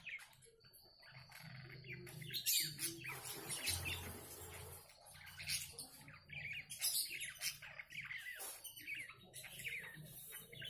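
Budgerigars chirping and chattering: many short, quick chirps and warbles, overlapping and irregular.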